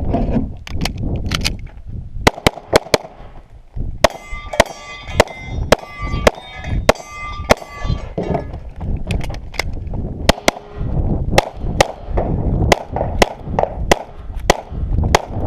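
Rapid pistol shots fired in quick strings with short pauses between them, while steel targets ring with a metallic clang after hits in the middle of the run.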